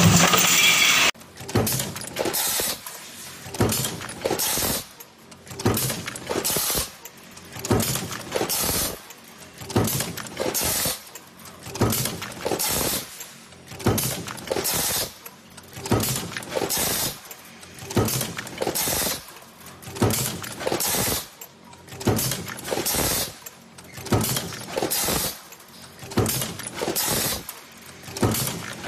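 Stamping press working a progressive die in steady production, a metallic clank with rattling parts about once a second. A louder, steady noise cuts off about a second in.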